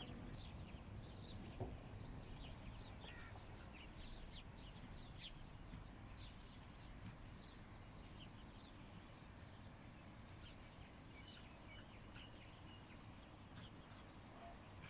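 Faint outdoor ambience of many small birds chirping in short calls, busiest in the first half, over a low steady background noise. A single short knock about two seconds in.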